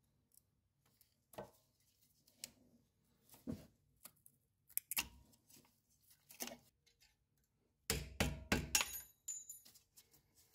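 Hand tools and fittings clicking, clinking and knocking against metal while the brake line holder and the brake wear and ABS sensor cables are undone from a car's front strut: a few separate knocks, then a busier run of clatter near the end.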